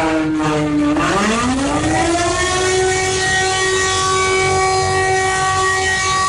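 Emergency warning siren sounding: a steady tone that sags slightly, dips about a second in, then rises back up over about a second and a half and holds at a steady pitch.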